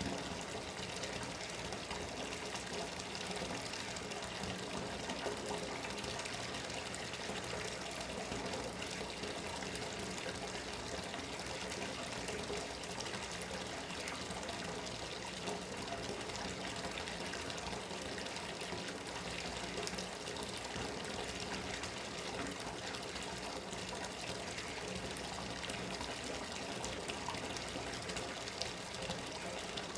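Bathtub tap running steadily, water pouring and splashing into the tub as it fills.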